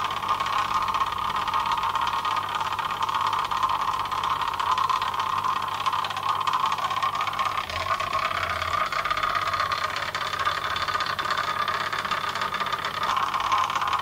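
A magnetic stirrer running with a steady hum underneath, its stir bar rattling continuously in a glass jar of carbon slurry. Dilute hydrochloric acid is being poured in, which makes the slurry fizz and the noise change a little as the acid dissolves the metal oxides.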